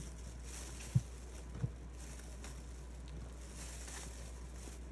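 Faint handling of the figure's packaging while trying to pull out the stand, with two soft low thumps about half a second apart near the start, over a steady low hum.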